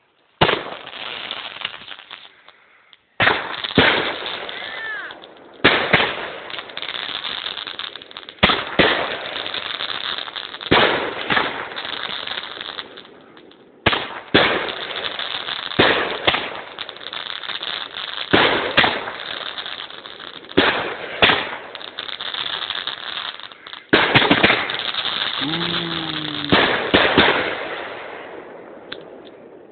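Consumer firework mortar shells bursting close overhead: a long run of sharp bangs, one every second or two, each trailing off in dense crackling.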